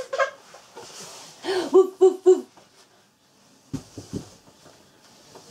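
Hearty laughter: a wheezing in-breath, then a quick run of four 'ha' bursts about two seconds in. A few short, low sounds follow near the four-second mark.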